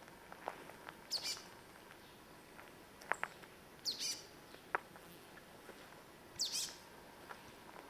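A bird calling three times, each call a short, high chirp that falls quickly in pitch, with a few faint sharp ticks between the calls.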